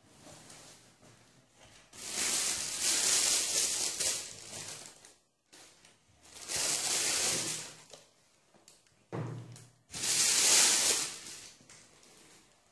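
Tissue paper rustling in a cardboard shoebox as hands unwrap and lift out football boots, in three bursts, with a soft low thump from the box just before the last one.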